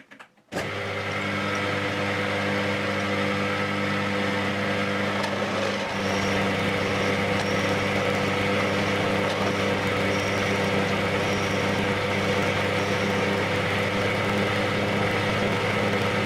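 Metalworking lathe motor running steadily with a constant hum and whine, starting abruptly about half a second in.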